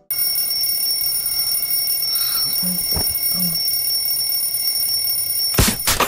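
An alarm clock ringing, a steady high-pitched ring that stops with a sharp click about five and a half seconds in.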